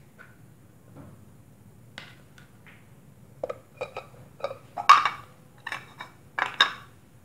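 Faint ticks of a knife slicing a red onion on a plastic cutting board, then a run of sharp, irregular knocks and clinks from about three and a half seconds in as the knife is set down and onion pieces are dropped into a glass bowl, the loudest about five seconds in.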